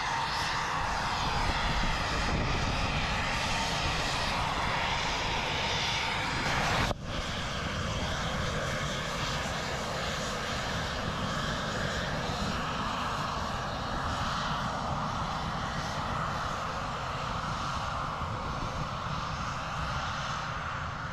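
Military jet aircraft engine noise, a steady wash of jet roar, with an abrupt break about seven seconds in, after which it runs on slightly quieter.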